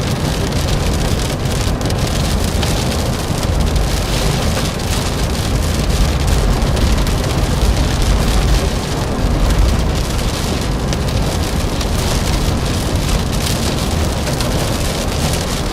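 Steady heavy rain pattering densely, with a constant low rumble underneath.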